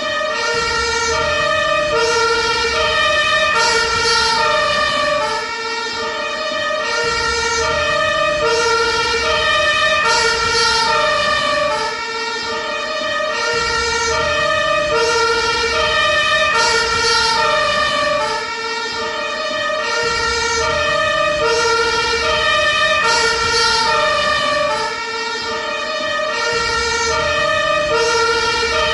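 Ambulance two-tone siren, alternating steadily between a high and a low note, over a low vehicle rumble.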